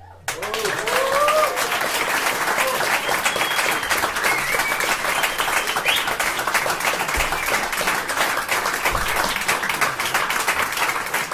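Audience applause breaking out suddenly right after the band's final note and carrying on steadily, with a few cheering voices in the first seconds.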